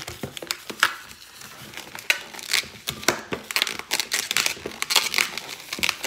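Long black latex modeling balloon being pinched and twisted by hand into a spider leg: a quick, irregular run of rubbery rubs, squeaks and crinkles of latex against latex.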